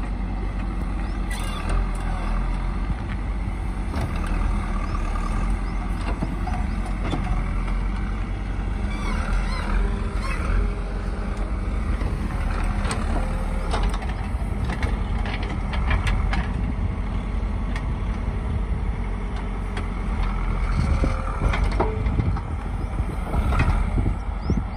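Backhoe loader's diesel engine running steadily under load while it digs soil, with scattered knocks and clanks from the bucket and arm.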